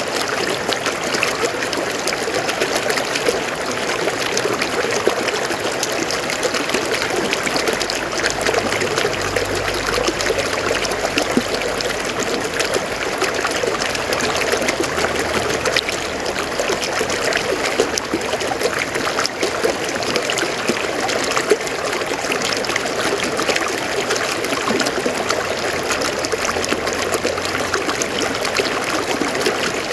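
River water flowing steadily over rocks, a constant trickling, bubbling rush.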